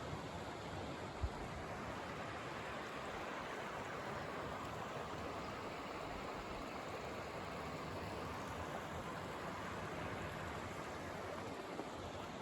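Creek water flowing in a steady rushing hiss, with a brief low thump about a second in.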